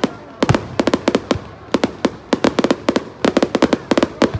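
Fireworks exploding in rapid succession: clusters of sharp cracks, several a second, with a deeper bang about half a second in.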